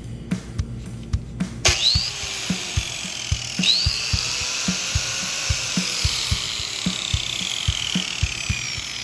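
An angle grinder fitted with a homemade chainsaw chain starts up about a second and a half in and runs with a high whine that slowly falls in pitch, the way a tool does as it takes load. Background music with a steady drum beat plays throughout.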